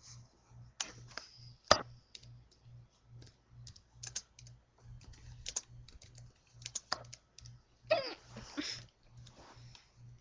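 Irregular light clicks of typing on a computer keyboard, with one much louder sharp click about two seconds in and a short breathy sound near the end.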